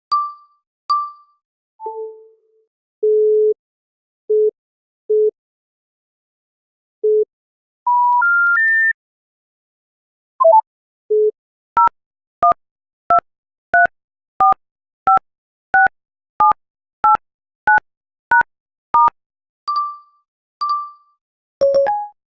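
A string of iPhone interface sound effects: short electronic pings and beeps, a three-step rising chime, then a fast run of two-tone beeps a little over one per second, like keypad tones.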